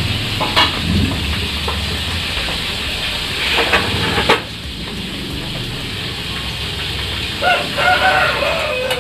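A rooster crowing near the end, with a few shorter, sharper calls earlier, over a steady background hum of the surroundings.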